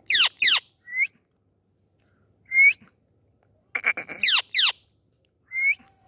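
Indian ringneck parakeet calling: two sharp calls sweeping steeply down in pitch, short rising whistled notes, then a quick run of clicks and two more sweeping calls, with pauses between.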